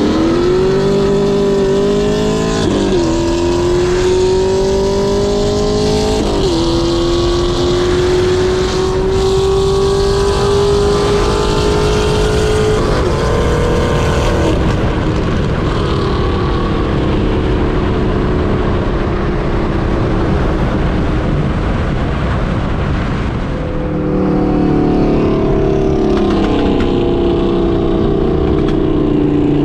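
Car engine accelerating hard, its pitch climbing through the gears with three upshifts in the first half, then steady road noise while cruising, and the engine pulling again near the end.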